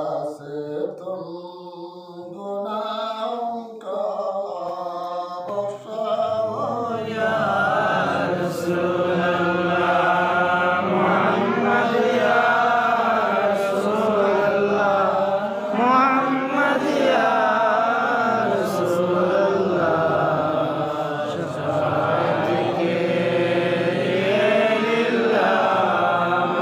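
Durood sharif chanted in a slow, melodic tune: voices chanting blessings on the Prophet, the chant growing fuller and louder about seven seconds in.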